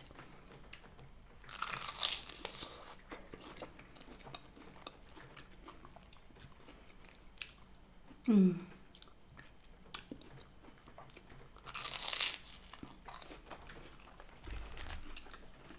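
Close-up crunching bites and chewing of a crisp, pan-fried grilled cheese sandwich dipped in tomato soup, with small mouth clicks between. The louder crunches come about two seconds in and again about twelve seconds in.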